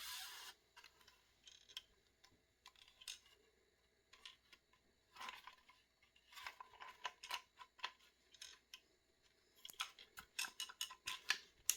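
Faint handling noises: soft rustles and scattered light clicks and knocks from an electronic drum kit's mesh drum pad being turned over and shaken, with a quicker run of clicks near the end.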